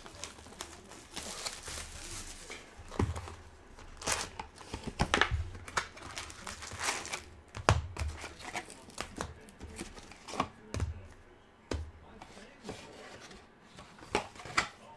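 Trading card packaging being torn open by hand: irregular crinkling and tearing of wrappers and cardboard, in short rustles and snaps.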